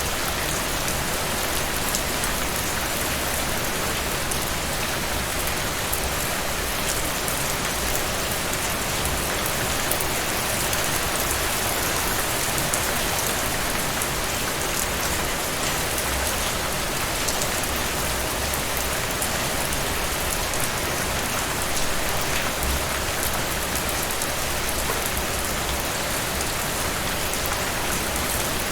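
Steady rain falling on a surface, a dense even hiss with individual drops pattering through it.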